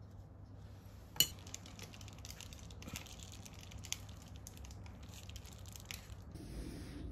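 Faint crackling and small clicks as a crisp, craquelin-topped cream puff is handled and filled with custard through a metal piping tip, with one sharp clink about a second in. A low steady hum runs underneath.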